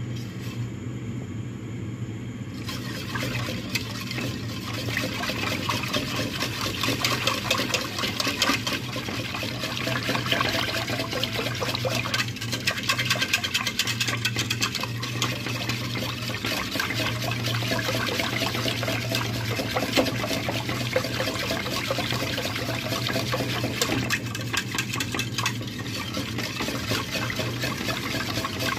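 A thin ube and milk mixture being stirred continuously in a metal pot as it heats on the stove: liquid swishing and sloshing with rapid scraping and clinking of the utensil against the pot, starting a couple of seconds in. A steady low hum runs underneath.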